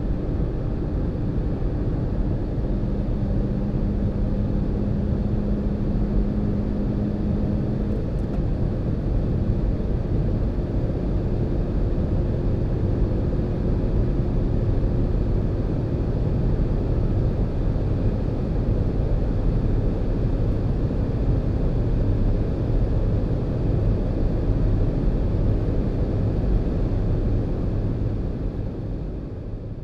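Inside the cabin of a Volkswagen GTI hatchback (turbocharged four-cylinder) at full throttle above 200 km/h: a steady engine drone under heavy wind and road rumble. It fades out near the end.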